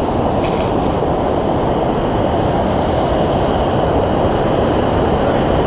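Waterfall's white water rushing down a sloping rock ledge: a loud, steady rush without a break.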